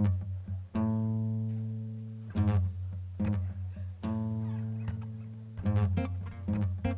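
Acoustic guitar playing a slow instrumental intro: chords picked and left to ring, a new one struck every second or so.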